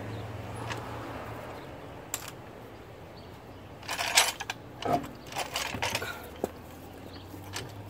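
Sharp metallic clinks and knocks, mostly in a cluster about four to six seconds in, from loosened lug nuts being taken off by hand and the front wheel being removed from the hub.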